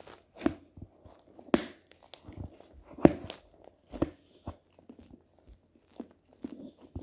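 White clay slime being pressed and squeezed by hand, giving irregular sticky clicks and squishy pops, the loudest a little after one and a half seconds and about three seconds in.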